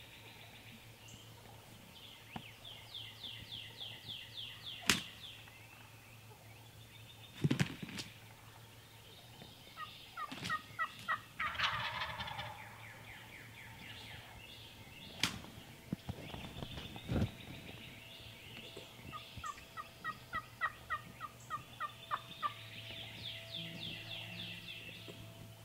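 Wild turkeys gobbling several times, each gobble a rapid rattling run of notes, with lower-pitched runs of quick calling notes in between and a few sharp snaps.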